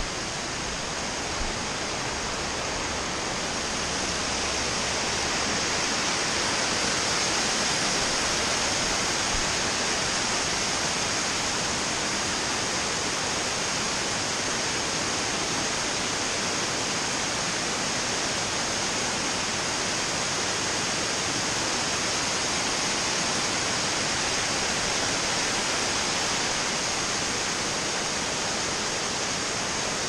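Waterfall rushing steadily, its water cascading down several rock tiers into a rocky stream, growing a little louder about five seconds in.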